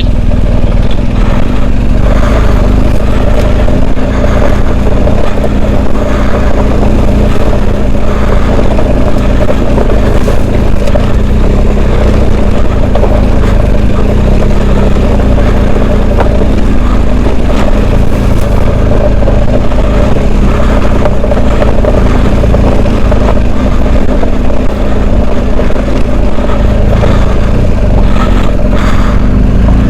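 Adventure motorcycle engine running steadily while riding along a gravel track, with constant wind and riding noise over it.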